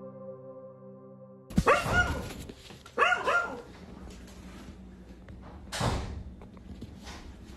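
A dog barking: a quick run of barks about a second and a half in, two or three more about three seconds in, and one more loud sharp sound near six seconds. Ambient music tones fade out just before the first barks.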